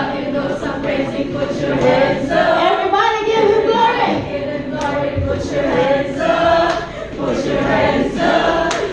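Worship team and congregation singing a praise song together, accompanied by a live band with guitars and drums, with percussion hits coming through in the second half.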